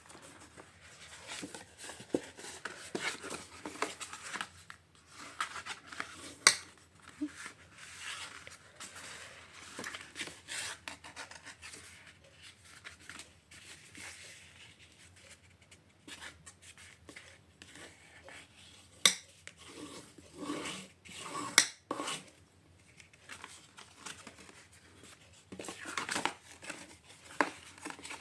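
Cardstock being folded and creased along its score lines and burnished flat: irregular paper rubbing and scraping with occasional sharp clicks, the loudest about six seconds in and twice around twenty seconds in.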